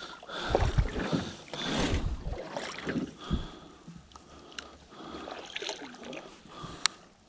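Canoe paddling: paddle strokes swishing and gurgling through the water alongside the canoe, with a few sharp clicks.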